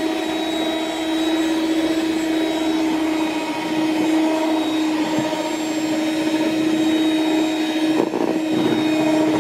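Philips electric hand mixer running steadily, a constant motor whine as its beaters churn cake batter.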